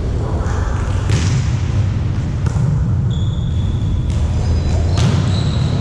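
A volleyball being struck and bouncing in a gym: about three sharp smacks a second or more apart, with faint high squeaks, over a steady low rumble.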